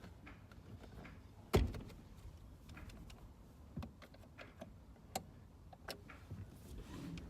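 Scattered clicks and knocks of a screwdriver and parts being handled while a car's steering wheel is taken off, with one sharper knock about a second and a half in.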